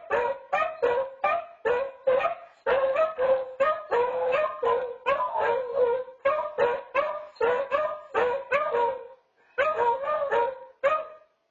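Two beagles baying together in a fast run of short, pitched yelping howls, about two to three a second, which stop near the end.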